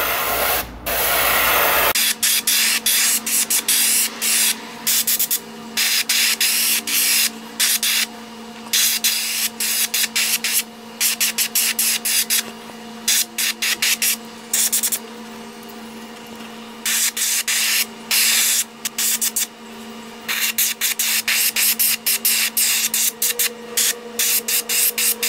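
Airbrush spraying paint in many short on-off bursts of hiss, with a steady low hum underneath.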